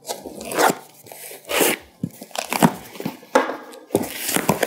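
Utility knife slitting the packing tape on a cardboard box, then the cardboard flaps being pulled open. It comes as a run of short scraping, tearing strokes.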